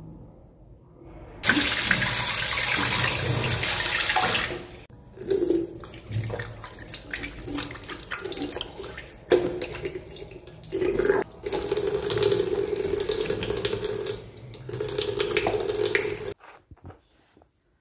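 Bathroom tap running into a sink, with water splashing unevenly as hands scoop it onto the face and arms, as in ablution (wudu) before prayer. The water comes on about a second and a half in and cuts off near the end.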